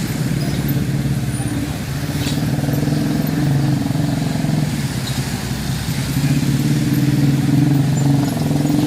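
Road vehicle engines running steadily at a level crossing, with a low, fluttering engine note that grows louder near the end.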